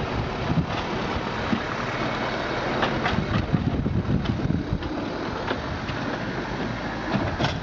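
Small narrow-gauge steam locomotive running slowly, a steady mechanical noise with a few scattered clanks.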